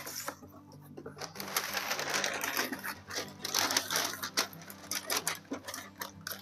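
Packaging rustling and crinkling as a bag is handled and taken out of its box, in irregular bursts with small clicks and knocks.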